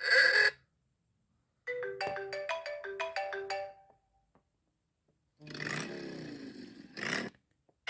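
iPhone ringtones and alert tones played one after another, with short gaps between them: a brief chime, then a quick run of short pitched notes, then a swooshing sound with gliding tones that ends in a short burst.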